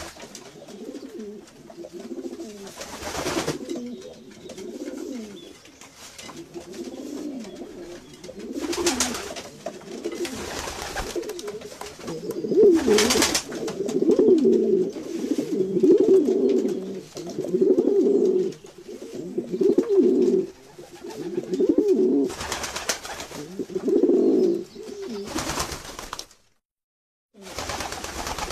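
Domestic pigeons cooing: low, throaty, warbling coos repeated over and over, coming about every two seconds in the later part, with a few brief sharp noises between them. The sound breaks off for about a second near the end, then resumes.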